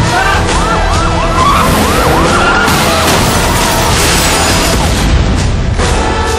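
A siren wailing in quick rising-and-falling sweeps, about three a second, over dense action music and effects. The wail fades about halfway through.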